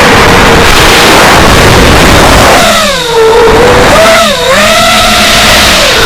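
FPV drone's motors and propellers whining under a loud rushing noise, the pitch dipping and climbing back twice as the throttle changes.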